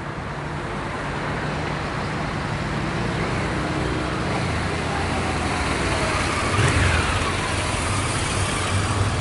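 Motorcycle engine approaching, growing steadily louder and passing close about seven to eight seconds in.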